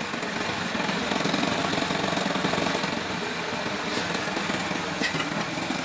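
Small motorcycle engine running steadily at idle.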